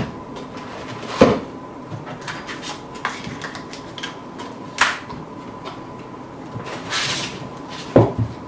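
Unboxing handling noise: a Cisco Spark Room Kit camera bar being turned over and set down in its foam packing inserts on a desk, giving about four sharp knocks spread out, with a short scraping rustle about seven seconds in.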